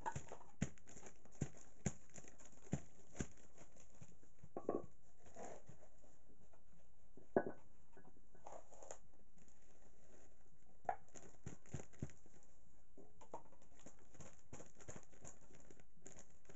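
Wooden tamping sticks thumping sawdust down inside plastic mushroom fruiting bags, with irregular dull knocks, the loudest about seven seconds in. Loose sawdust and the plastic bags rustle between the knocks.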